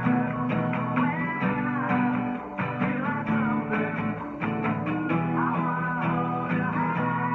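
Steel-string acoustic guitar strummed in a steady rhythm, changing through G, D, E minor and B7 chords.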